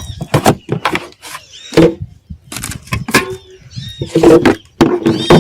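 A close, irregular run of sharp knocks and clatter, several each second, with small high chirps over it.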